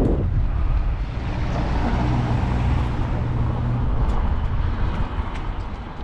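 A motor vehicle's engine hum, steady for a couple of seconds in the middle and fading towards the end, over a low rumble.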